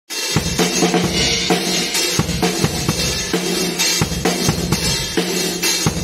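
Acoustic drum kit played in a steady groove: bass drum, snare and cymbals, starting abruptly right at the start.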